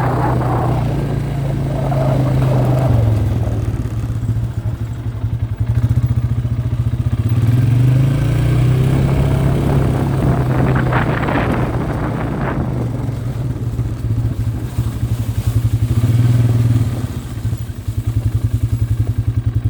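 Quad (ATV) engine running while being ridden, its pitch wavering up and down, easing off briefly twice.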